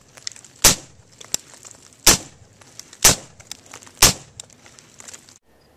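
Four suppressed rifle shots about a second apart, fired by a 5.56 AR-15 with an 11.5-inch barrel and a QSM titanium thread-on suppressor, shooting M855 rounds. Fainter clicks sound between the shots.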